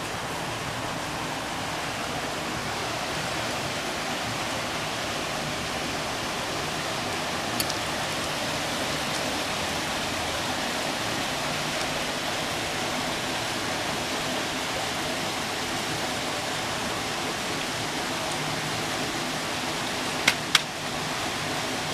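A steady hiss of background noise, then near the end two sharp, short bursts about a third of a second apart: a dog's old-man-like sneeze, which could as well be a cough.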